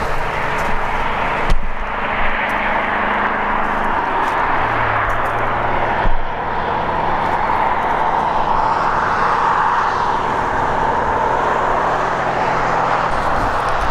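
Steady highway traffic: a continuous rush of tyre and engine noise from passing cars and trucks, swelling and easing as vehicles go by.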